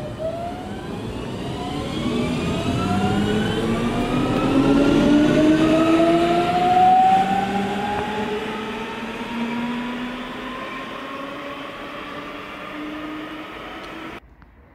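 Electric train accelerating, its traction motors giving several whining tones that rise steadily in pitch over rail and running rumble. It is loudest about halfway through, and the sound cuts off abruptly just before the end.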